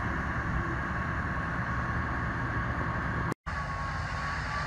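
Fire engines' diesel engines running at a fire scene: a steady low rumble with hiss. The sound cuts out for a moment about three and a half seconds in, and a thin steady whine is heard after it.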